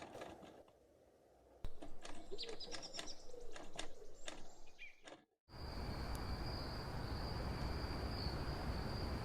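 Irregular sharp clicks mixed with short high bird chirps. After a sudden cut about five seconds in, a steady high insect trill runs over outdoor background hiss.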